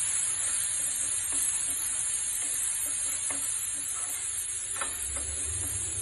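Green peas frying with onion and spices in a nonstick frying pan, sizzling steadily as they are stirred, with a few light taps of the stirring utensil against the pan.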